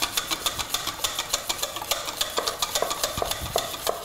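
Wire whisk beating butter in a stainless steel mixing bowl: rapid, even clicking at about six strokes a second, with short ringing tones from the metal bowl from about halfway on.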